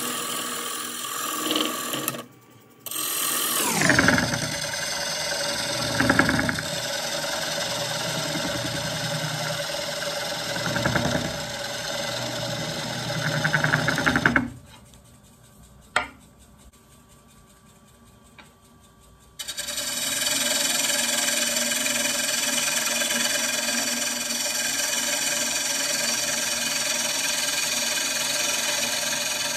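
Wood lathe running while a gouge cuts into a spinning walnut-and-cherry bowl blank, the cutting noise swelling several times as the tool bites. A falling whine comes about three seconds in, and the noise drops away abruptly for about five seconds in the middle before coming back steady.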